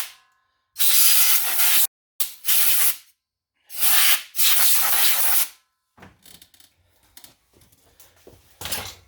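An aerosol can sprayed in three long hissing bursts, the last about two seconds long, followed by faint clicks and handling of parts with a short knock near the end.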